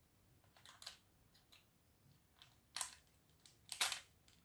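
Scattered soft clicks and taps of plastic and metal as a cylindrical cartridge fuse is handled and pressed into the spring clips of an opened fuse disconnector, the loudest click near the end.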